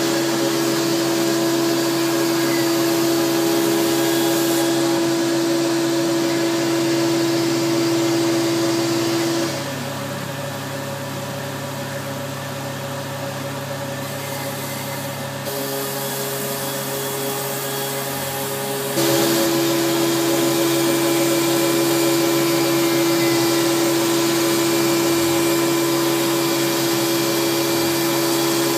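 Tormach PCNC 770 CNC mill's spindle milling a carbon fibre plate, with a shop vacuum running steadily to pull away the carbon dust. The steady hum drops in level about ten seconds in and comes back up near twenty seconds in.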